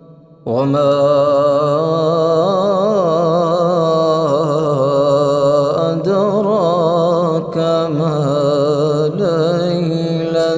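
A male voice giving a melodic Quran recitation: long drawn-out, ornamented phrases with a wavering pitch. It starts about half a second in, with brief breaks for breath.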